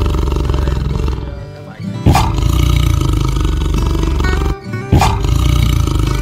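Background music, broken twice by a loud tiger roar, the first about two seconds in and the second about three seconds later, each coming in suddenly just after the music drops away.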